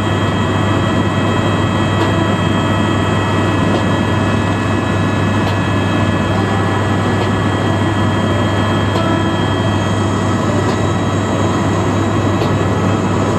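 Helicopter cabin noise in flight: a steady low hum from the rotors and engine with several steady high whining tones over it.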